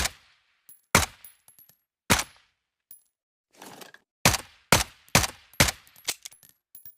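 Suppressed M1911 pistol shots: a string of sharp cracks, spaced out at first and then several in quick succession from about four seconds in, some followed by faint high metallic pings.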